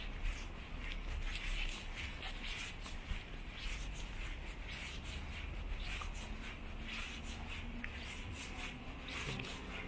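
Walking footsteps scuffing on a gritty pavement, about two steps a second, over a steady low rumble. Near the end a passing car's engine hum comes in.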